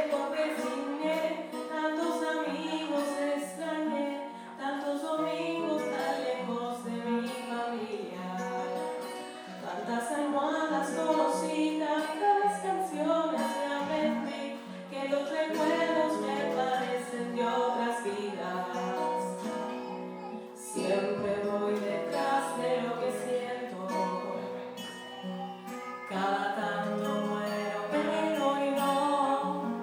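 Song with singing over guitar accompaniment.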